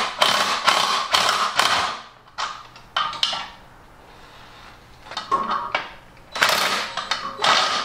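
Ratchet wrench clicking in quick runs, with pauses between strokes, as nylock nuts are tightened onto the hose reel's mounting bolts. The bolts' square necks are stripping in the wood shelf, so the nuts keep turning without cinching up.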